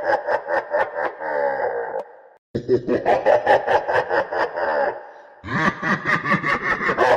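An evil laugh sound effect repeating in bouts. Each bout is rapid staccato laughter, about seven 'ha's a second, ending in a falling, drawn-out note. One bout ends about two seconds in, and a new one starts after a brief break. Another ends near five seconds, and the next begins just after.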